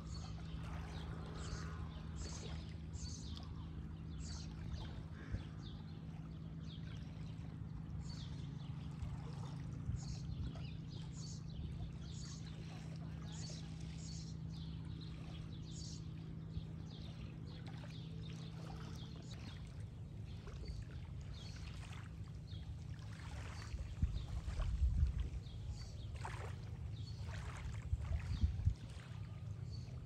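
Lakeside ambience: a boat engine's low, steady hum fades out about two-thirds of the way through, over small waves lapping and splashing at the shore. A few low rumbles come near the end.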